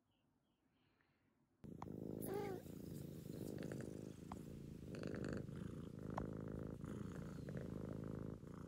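Domestic cat purring close to the microphone, a steady, rapidly pulsing rumble that starts suddenly after about a second and a half of near silence, with a brief wavering cry shortly after it begins.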